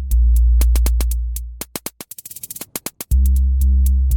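Electronic track playing back from Maschine: a deep synth bass holding long notes of about two seconds each, one re-struck just after the start and a new one about three seconds in, under quick sharp clicks of a drum-machine pattern.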